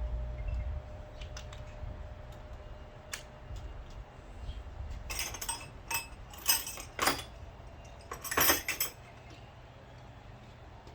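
Metal hand tools clinking and rattling as they are rummaged through, in a search for a socket adapter. A few light ticks come first, then a burst of sharp clinks about halfway through.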